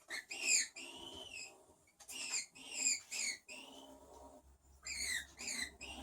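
Skunk vocalising: high, squeaky chirps in three quick bursts, a few calls to each, some drawn out with an arching pitch.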